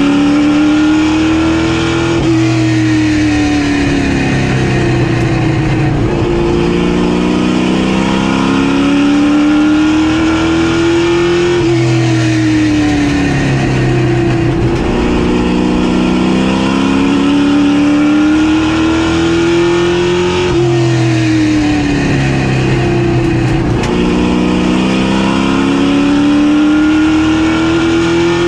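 Street stock race car engine running hard laps on a short oval: it winds up in pitch, then drops off and comes back up again in a steady cycle about every four to five seconds, as it accelerates out of the turns and lifts going in.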